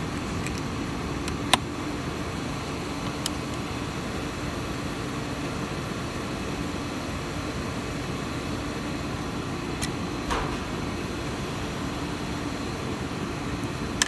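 Steady fan-like hum of a workroom, with a few sharp clicks from handling the board test jig and its toggle clamp, the loudest about a second and a half in and another at the very end.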